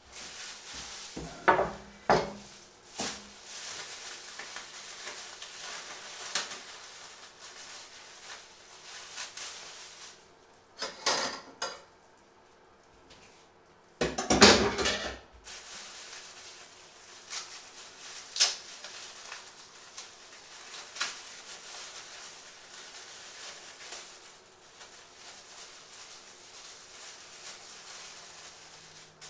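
Stainless steel pots and metal kitchen utensils clanking as they are handled: a few sharp clanks near the start, a short clatter before the middle and the loudest clatter about halfway through. After that, softer rustling and small clicks as a plastic-wrapped package is handled.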